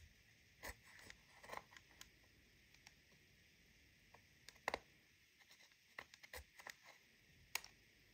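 Plastic spatula scraping and tapping pressed eyeshadow in a plastic palette: scattered short scratchy clicks, the sharpest about halfway through, with a cluster of them near the end.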